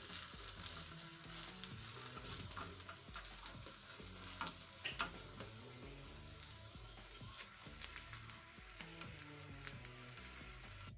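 Spinach omelette frying in butter in a nonstick pan, a steady sizzle with scattered small clicks and taps from a silicone spatula working it against the pan.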